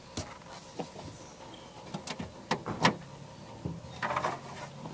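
A boat's live-well seat lid being lifted off and the compartment handled: a scattered series of light knocks and clatters, about half a dozen in all.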